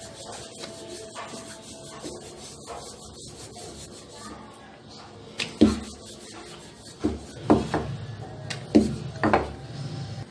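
Wooden rolling pin rolling out dough on a floured counter, with a steady rubbing sound. In the second half there are several sharp knocks and a low rumble as the rolling goes on.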